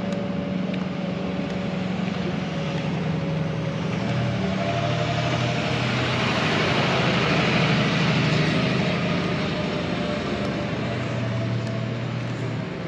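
A road vehicle's engine and tyre noise, swelling to its loudest about two-thirds of the way through and easing off near the end.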